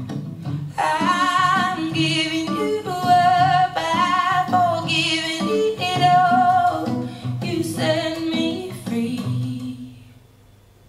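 R&B/pop song played through a pair of JBL 4329P active studio monitors: a voice singing over plucked guitar, fading out near the end.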